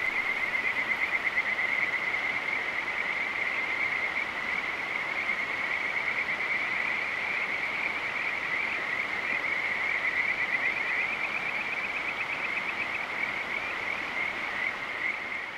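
Chorus of frogs calling at night, many overlapping calls blending into a continuous high, rapidly pulsing trill over a steady hiss.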